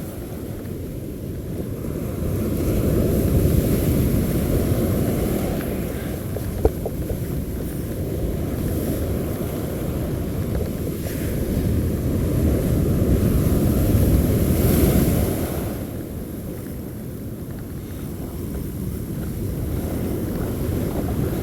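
Surf washing on the beach, with wind rumbling on the microphone; the wash swells twice, a few seconds in and again about two-thirds of the way through.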